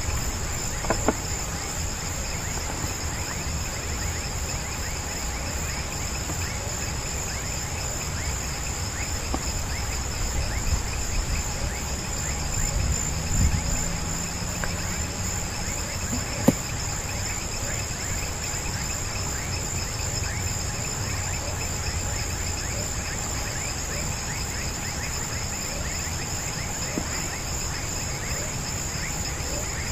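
Steady, high-pitched chorus of insects shrilling in grassland, over a low rumble, with a single sharp click about halfway through.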